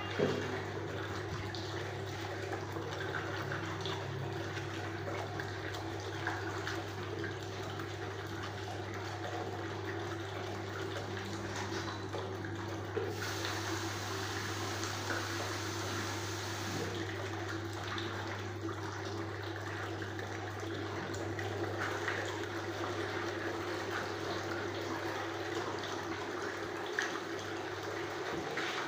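Steady rush of water in a pedicure foot-spa bowl, over a low steady hum that fades near the end, with a few light knocks.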